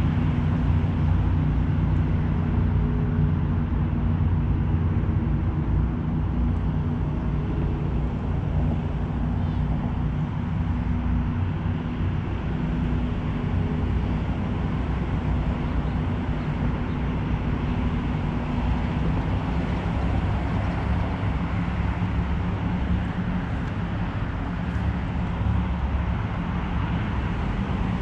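Steady low drone of road traffic and engines: an even rumble with a few held engine tones that shift slightly partway through.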